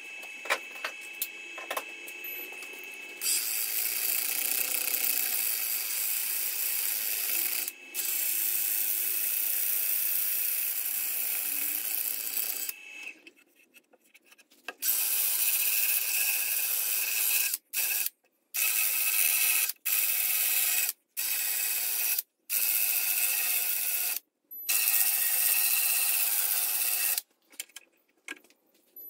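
Handheld cordless power sander with a hook-and-loop disc running against a eucalyptus burl bowl spinning on a wood lathe: rapid ticking at first, then a steady high whir. It stops for about two seconds near the middle, then cuts in and out abruptly several times in the second half.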